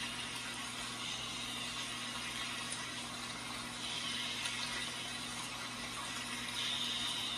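White noise played to lull a newborn to sleep: a steady hiss over a low hum, with a higher hiss that swells up every few seconds.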